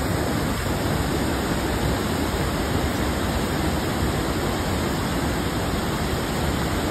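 Fast-flowing river rushing: a loud, steady wash of water noise with no breaks.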